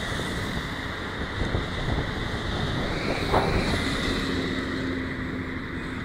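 Wind buffeting a headphone microphone in a steady rumble, with road traffic passing; a faint steady engine hum joins about two-thirds of the way through.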